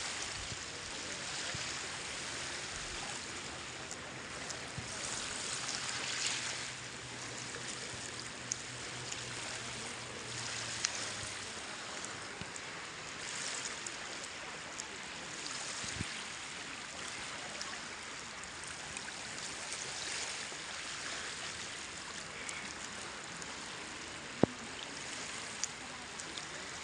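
Small waves washing over a shallow sandy shore, the wash swelling and fading every few seconds. A low steady hum runs through the first ten seconds or so, and a sharp click sounds near the end.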